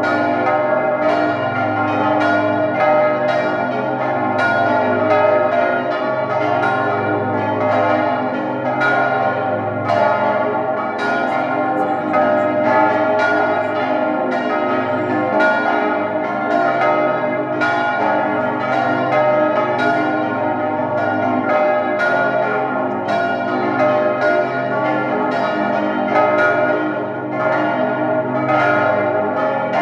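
Full peal of swinging church bells, tuned on A-flat with the largest bell on low A-flat, mostly cast by Johann Hahn of Landshut. Many bells strike out of step, so the strokes overlap into a continuous, steady clang with a deep hum beneath.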